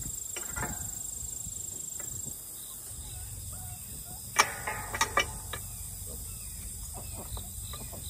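Metal gate hardware being handled: a sharp clank with a brief ring about four and a half seconds in, then a couple of lighter clicks, as the steel tube gate is moved against the two-way latch. A thin steady high insect whine sounds for the first two seconds.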